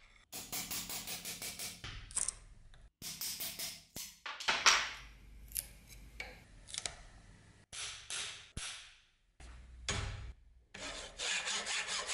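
Wooden handle scales being levered off a rusty cleaver's tang with a steel bar: scraping and creaking of wood and metal in short bursts, with a sharp knock about four and a half seconds in. Near the end, even, rapid strokes of a file on the steel tang.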